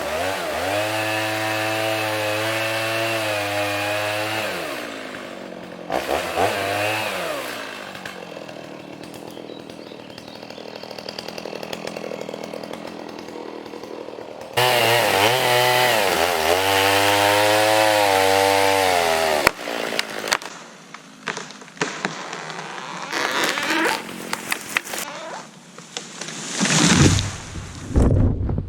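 A bandsaw sawmill's engine runs loud and fast with a slightly wavering pitch, drops to a quieter noise for several seconds, then comes back loud about halfway through and stops a few seconds later. After it stops come scattered knocks and clatter, with one louder burst near the end.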